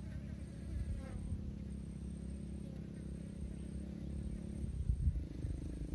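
Steady low hum of a distant motor over low rumbling, like wind on the microphone. The hum's pitch shifts a little near the end.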